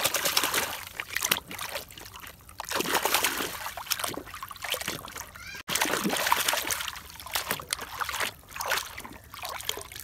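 Water splashing and sloshing in irregular bursts as a toy fire truck is swished back and forth through it by hand to wash it.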